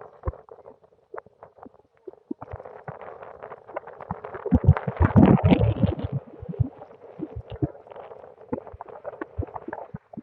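Strong mountain wind buffeting the microphone: a steady rush broken by crackles and knocks, swelling into a heavy, booming gust about halfway through before easing off.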